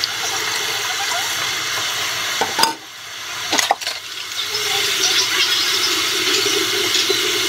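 Kitchen faucet running into the sink while dishes are washed by hand. Two knocks of dishes sound as the water briefly drops off, about two and a half and three and a half seconds in. The water then runs on into an enamel pot held under the stream.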